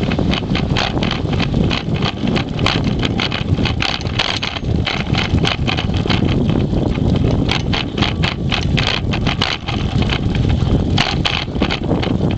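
Dog scooter's vibration carried through the handlebar camera mount into the camera as it rolls along the sidewalk: a steady low rumble with frequent irregular rattling clicks.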